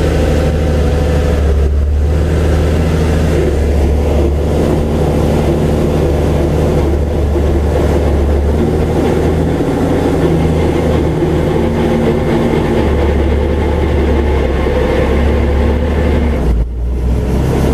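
Robinson R44 helicopter's six-cylinder Lycoming piston engine running steadily with the main rotor turning after the rotor clutch has been engaged during start-up. A strong, steady low hum, briefly dipping near the end.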